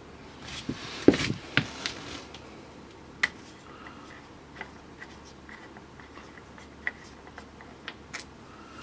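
Hands working on a Honda Super Cub C90 engine, making light handling noises: a few knocks about a second in, then scattered small clicks and ticks.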